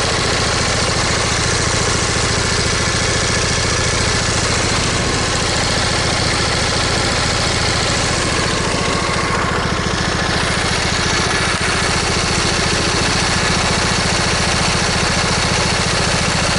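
Briggs & Stratton V-twin lawn tractor engine idling low and steadily, with a slight miss on one cylinder. The owner thinks the miss may come from the ignition or a leaking valve cover gasket.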